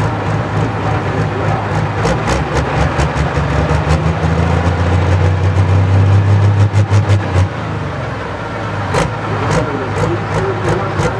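Pro Stock pulling tractor's turbocharged diesel engine revving at the starting line. It builds to its loudest about six to seven seconds in, then drops off abruptly. A run of sharp clicks is heard throughout.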